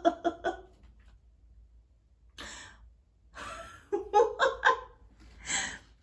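A woman laughing in short bursts and taking loud breaths, recovering from a sneezing fit brought on by the scent of gift-wrapping tape.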